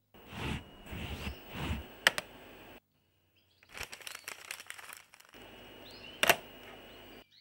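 A few swishing footsteps, then clicking and rattling as a wooden garden letterbox is opened and rummaged through, with a sharp snap about six seconds in as the lid is shut. Birds chirp faintly.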